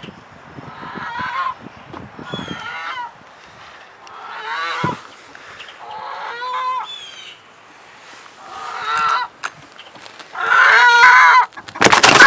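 Chickens shut in a hen house giving harsh, honking squawks over and over, a call about every second and a half to two seconds, growing louder toward the end. A loud knock or rustle comes near the end.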